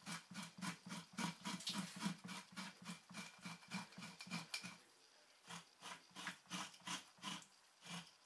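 Dull knife scraping membrane and flesh off a fresh fox hide in quick repeated strokes, about four a second, breaking off briefly about five seconds in and resuming more slowly.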